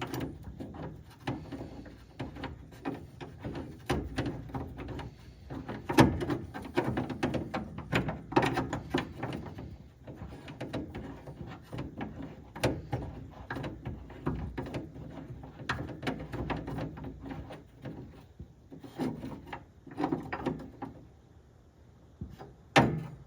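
Mounting bracket and bolt for a truck-bed Molle panel being pushed into the bed-wall hole and screwed in by hand: irregular knocks, clicks and scraping, with a sharper knock about six seconds in and another near the end. The bracket will not stay put as it is tightened.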